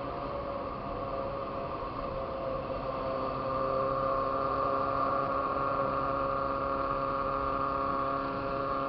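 Motorcycle engine running at a steady cruising speed, its hum getting a little louder about three seconds in, with road and wind noise underneath.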